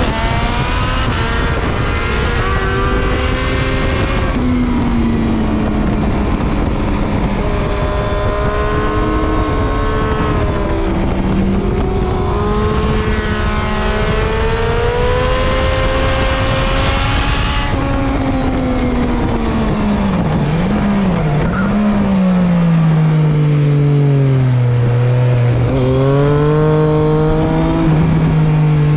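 Triumph 675 three-cylinder engine at racing revs, pulling up through the gears with the pitch climbing and dropping at each upshift. About two-thirds through, the revs fall away under braking, with two quick throttle blips on the downshifts, then it pulls hard again near the end.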